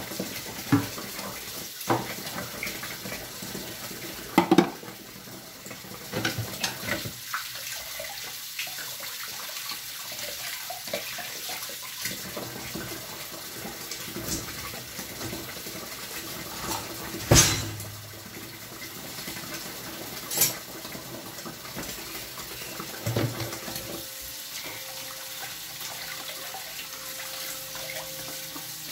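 Kitchen tap running steadily into a stainless steel sink while cups and dishes are rinsed under it, with scattered knocks and clatters of dishes against the sink; the loudest knock comes a little past halfway.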